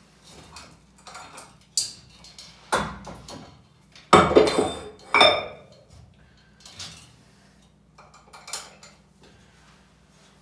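Metal weight plates clanking and clinking as the weight is changed, in a series of separate sharp knocks, the loudest cluster about four to five seconds in.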